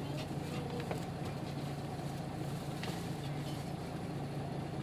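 Nissan Diesel KK-RM250GAN city bus's diesel engine running steadily with a constant low hum, heard with the bus's road and cabin noise.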